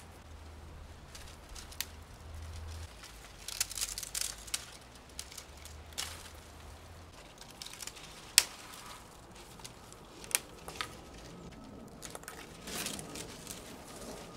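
Dry poppy seed heads being picked off their brittle stalks by hand: crackling and rustling of dry stems and pods, broken by sharp snaps, the loudest about eight seconds in.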